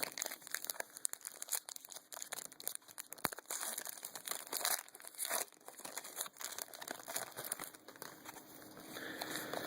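Trading cards from an opened pack being handled and flipped through by hand: irregular rustling and crinkling with soft ticks as the cards slide against one another.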